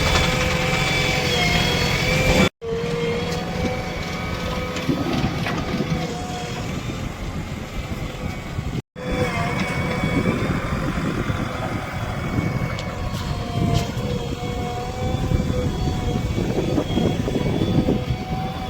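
Heavy diesel machinery running: the engines of a backhoe loader and tractors at work, with a steady whine over the engine rumble and occasional clanks. The sound cuts out abruptly twice.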